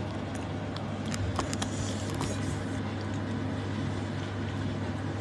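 A steady low hum, with a few light clicks and taps between about one and two and a half seconds in.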